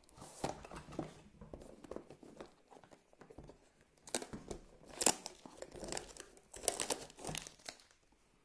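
GoPro box packaging being handled and torn open: irregular crinkling, rustling and tearing, busiest in the second half.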